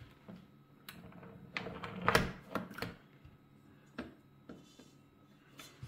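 A switched-off Starcrest stand mixer being handled: a series of plastic and metal clicks and knocks as the speed knob is turned and the tilt head is unlatched and raised, with a dense clatter about two seconds in.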